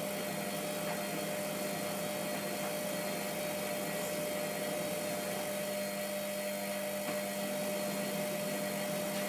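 Hotpoint Aquarius WMF720P washing machine running with a steady hum and whine, its drum halted after a spin attempt in an over-sudsed wash.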